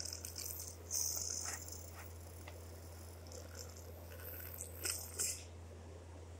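Faint, scattered rustling and scuffling over a steady low hum, with a few short bursts about a second in and again around four to five seconds in.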